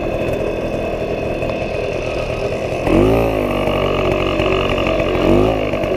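1977 Puch Pinto moped's small two-stroke engine running, its pitch shifting briefly about halfway through and again near the end.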